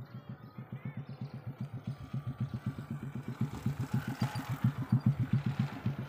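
A small engine running with a steady low putting beat of about seven pulses a second, growing louder toward the end.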